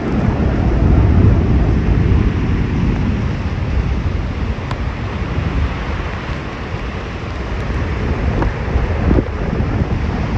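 Strong wind rushing and buffeting the microphone, a steady loud low rumble of noise.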